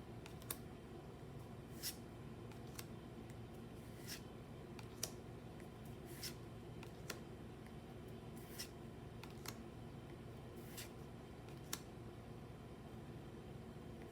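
Pokémon trading cards being handled one at a time, with a short, crisp swish or flick roughly once a second at an uneven pace, over a faint steady low hum.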